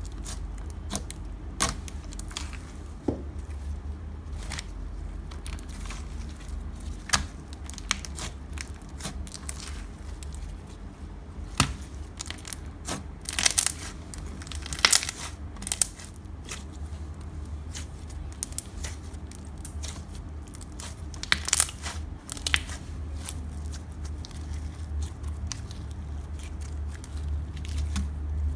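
Clear slime full of air bubbles being squished and stretched by hand, giving off irregular sharp pops and crackles as the bubbles burst.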